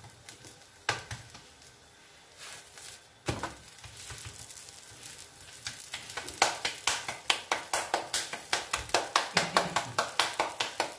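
Kitchen utensils knocking: a few separate clinks, then, about halfway through, a quick even run of taps, about five a second, like a spoon or tool working briskly against a pan or bowl.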